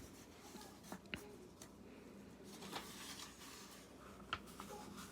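Faint rustling and soft taps of paper being handled: a hardcover book's pages and dust jacket turned and moved, with a few small clicks.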